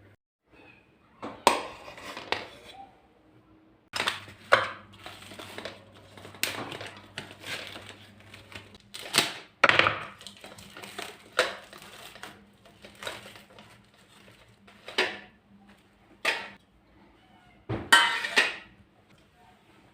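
Dishes and kitchen utensils being handled: irregular clatters and knocks, the loudest about four and a half seconds in and near the end.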